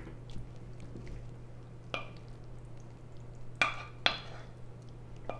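Sauced cascatelli pasta sliding from a stainless-steel skillet into a ceramic bowl, pushed along with a wooden spoon, with a few sharp clinks against the bowl, the loudest about three and a half and four seconds in.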